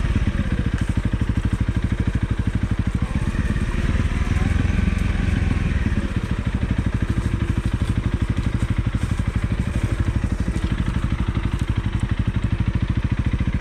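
Single-cylinder motorcycle engine running at low revs, an even rapid pulse, with a brief rise and fall in pitch around the middle.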